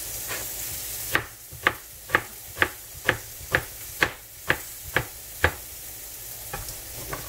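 Chef's knife slicing a red onion on a cutting board: about ten even chops, about two a second, with a couple of fainter cuts near the end. A frying-pan sizzle hisses for the first second, then stops suddenly.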